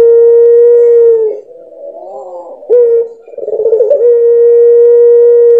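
Puter pelung, a domestic Barbary (ringneck) dove, giving its long coo. A long held note ends about a second and a half in; after a short pause comes a short note, a quavering rise and a second long, steady note.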